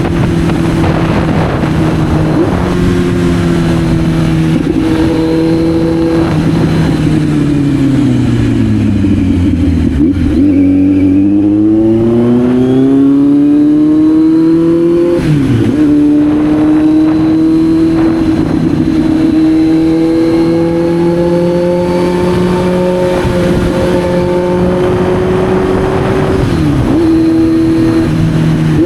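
Kawasaki Z900's inline-four engine on the road. Its note holds steady, drops as the bike slows about eight to ten seconds in, then climbs again under acceleration. A brief break in the note comes around fifteen seconds and another near the end, and the revs rise slowly in between.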